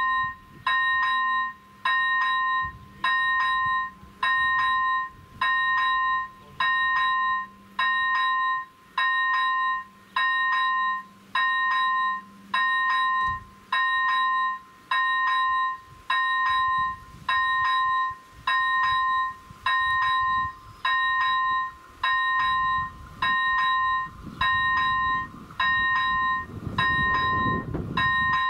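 Level crossing's electronic warning bell dinging steadily, a bit faster than once a second, while the AŽD 71 red lights flash. A low rumble grows in the last few seconds as the train approaches.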